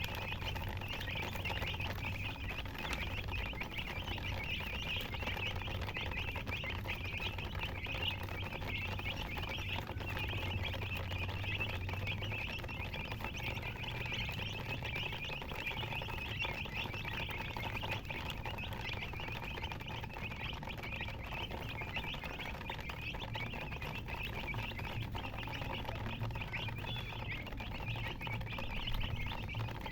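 Many baby chicks peeping continuously, their short, high chirps overlapping without a break, over a low steady hum.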